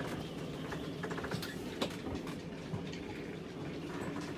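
Scattered light clicks and taps over a steady background hiss.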